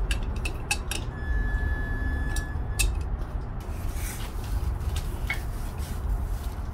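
Scattered metallic clinks and taps of a large adjustable wrench on a steering tie rod end as it is turned on the tie rod, over a steady low background rumble.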